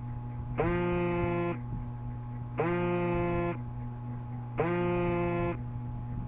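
Electronic buzzer tone sounding three times, each a low, buzzy beep of about a second that bends up slightly in pitch as it starts, repeating every two seconds.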